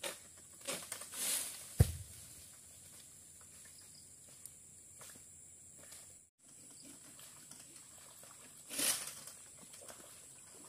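Oil palm fronds rustling as they are cut and pulled down with a long harvesting pole, with one sharp heavy thud about two seconds in as something cut from the palm hits the ground. A second, longer burst of rustling comes near the end.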